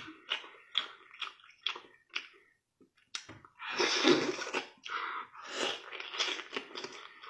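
A small child eating a whole boiled chicken, with wet mouth smacks, sucking and chewing in quick, irregular clicks. About four seconds in there is one longer, noisier stretch.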